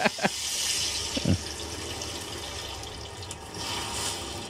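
Elephant foot yam strips sizzling as they deep-fry in a large wok of hot oil: a steady, hissing sizzle that swells a little near the end.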